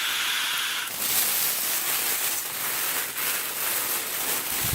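Long inhale drawn through the valve mouthpiece of a Volcano vaporizer's balloon bag: a steady airy hiss that turns brighter about a second in. A short low bump near the end.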